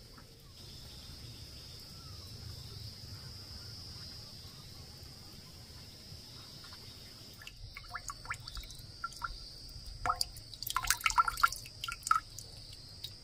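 Water dripping and trickling into a trough, with scattered drips that build into a quick run of splashy drips about ten seconds in, over a steady high insect drone.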